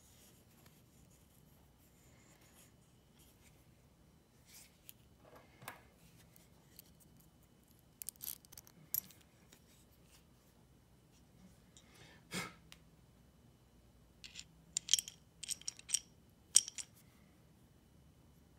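Steel bolt, flat washer and lock washer clicking and clinking against the steel cup of a neodymium fishing magnet as the hardware is handled and fitted. Short clicks come now and then, with a quick run of sharper, louder clicks near the end.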